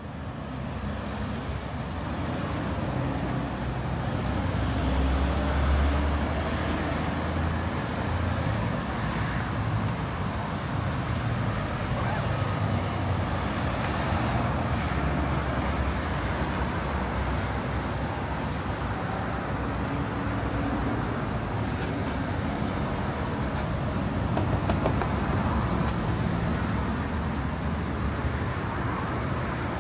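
Road traffic noise: cars driving past on a street, a steady low rumble that swells about six seconds in and again near the end.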